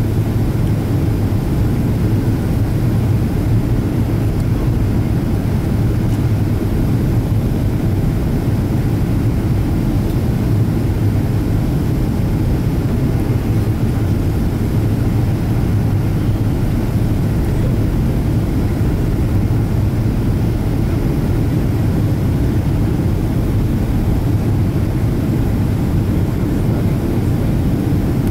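Boeing 777-200ER airliner in flight, heard from inside the passenger cabin: a steady, loud low rumble of engine and airflow noise with no breaks or sudden events.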